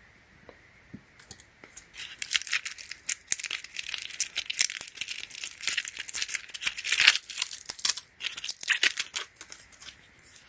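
Plastic packaging being handled and unwrapped: a dense run of irregular rustles and crackles starting about two seconds in, with a short lull near eight seconds.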